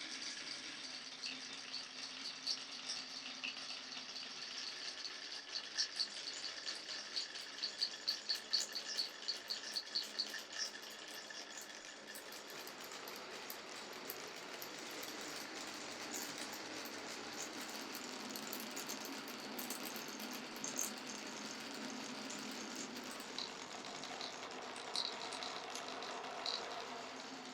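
Glass marbles rolling and clattering along a wooden marble run: scattered clicks and knocks, with a quick regular run of ticks about a third of the way in, then a long steady rolling sound from just under halfway on.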